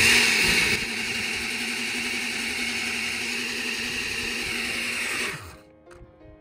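Electric blender running steadily as it purées soaked dried chiles into a paste, then switching off about five seconds in.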